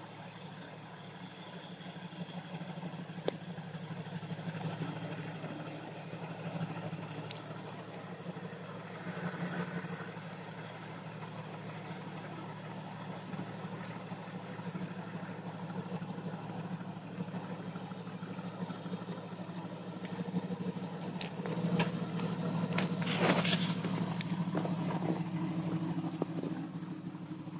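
Jeep Wrangler TJ's 4.0-litre straight-six petrol engine running at low revs as the Jeep crawls slowly over a log bridge, a steady low hum. A few sharp knocks, and a louder stretch with the engine pulling harder near the end.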